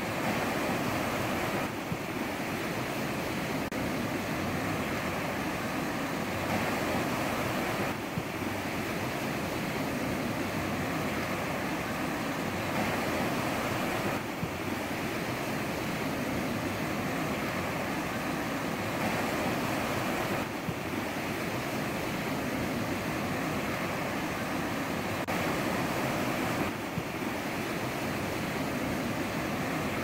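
Ocean surf washing onto the shore: a continuous, steady rush of breaking waves, its texture shifting abruptly every few seconds.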